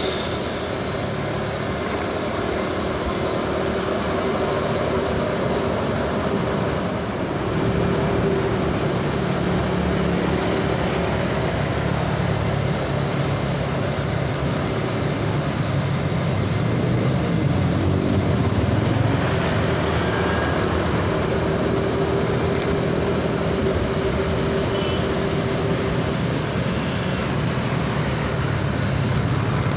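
Steady engine and road noise of moving traffic close beside a tour coach, with the engine hum rising a little about eight seconds in.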